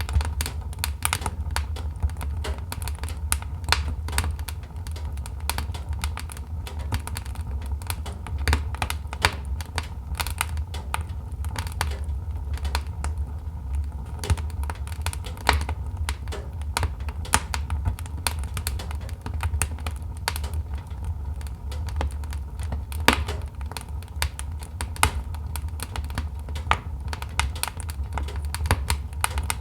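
Wood logs burning in a fireplace, crackling with many irregular sharp pops and snaps over a steady low rumble of the fire.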